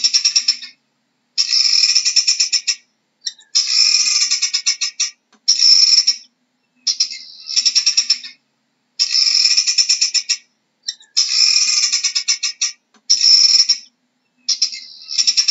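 Helmeted guinea fowl cackling: rapid pulsed chatter in bursts of one to two seconds, about nine bursts with short silent gaps between them.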